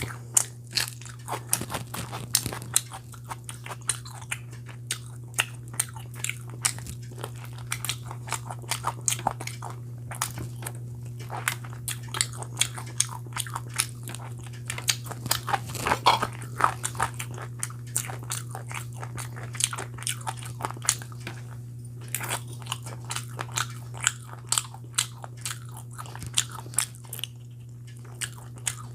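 A person eating close to the microphone: biting and chewing food with many sharp, irregular wet mouth clicks, the densest about halfway through, over a steady low hum.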